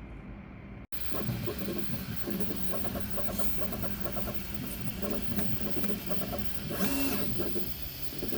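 Prusa i3 MK3S+ 3D printer printing, its stepper motors whirring in short, constantly changing tones. It starts suddenly about a second in.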